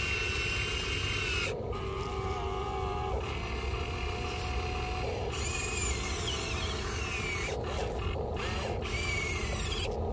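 Electric motors and gearboxes of a radio-controlled Huina excavator whining as its arm and turntable are worked. The pitch shifts up and down and the whine breaks off briefly several times.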